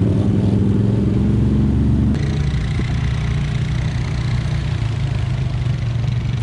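ATV engine running steadily while the four-wheeler wades through muddy floodwater. About two seconds in the engine note drops and the rushing hiss of water thrown up around the machine grows.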